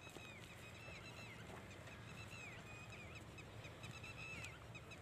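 Faint birdsong: short falling notes repeated about three times a second, with higher chirps from other birds over a low outdoor rumble.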